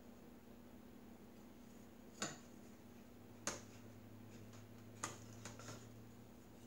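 Sharp metallic clicks and taps of a thin copper leaf and a small hand-operated metal forming machine as the leaf's sides are squeezed in to flatten its contour: three louder clicks spaced a little over a second apart, then a couple of softer ones, over a faint steady hum.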